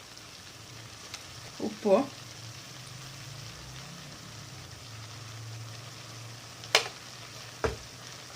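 Boiled sweet corn kernels sizzling in butter in a pan, a steady frying hiss. Near the end a utensil taps sharply against the pan twice.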